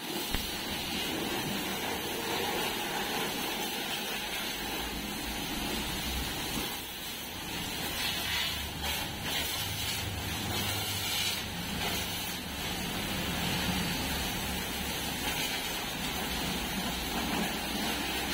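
High-pressure washer jet spraying water onto a tractor's engine and body, a steady hiss of spray with a low steady hum beneath it.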